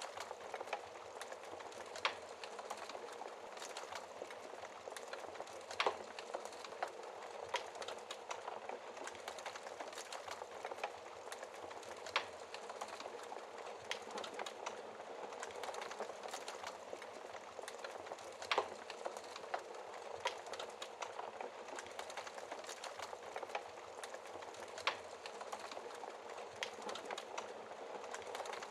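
Wood fire burning in a fireplace: steady crackling, with about five louder pops spread through.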